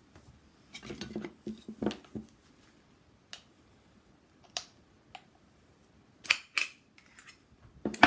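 Thin stainless-steel sheet of a freshly pressed end cap clinking, crinkling and scraping as it is worked free with a small hand tool. The sound is irregular metallic clicks and short scrapes, with a cluster in the first two seconds and two louder clinks a little after six seconds.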